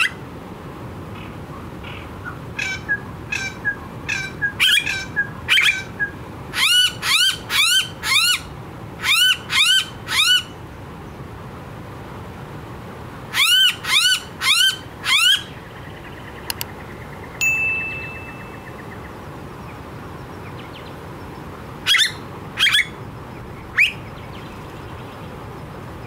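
Blue-faced honeyeater calling: loud, repeated piping notes in groups of three or four, with a quicker, softer run of notes first and pauses between groups.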